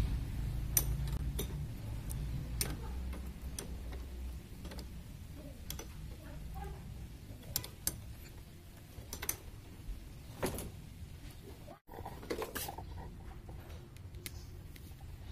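Scattered light metallic clicks and taps of a spanner working the drain screw on a motorcycle carburetor's float bowl, then hand tools clinking near an open toolbox. A low rumble fades out over the first few seconds.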